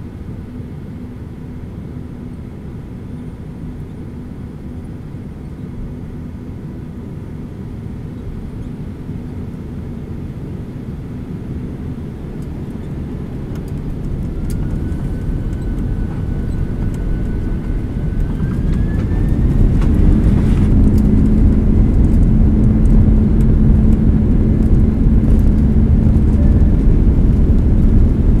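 Boeing 767-300ER's twin turbofan engines heard from inside the cabin by the wing, spooling up to takeoff thrust. A steady low rumble grows much louder from about halfway through and then holds loud, while a thin whine rises in pitch as the engines wind up.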